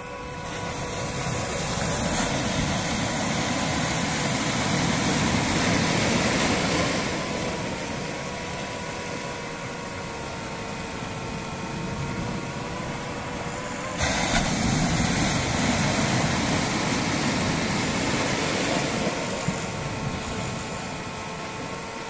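DJI FPV drone's motors and propellers whining steadily over a rush of wind noise. The whine swells and eases with the throttle, then jumps abruptly louder about two-thirds of the way through.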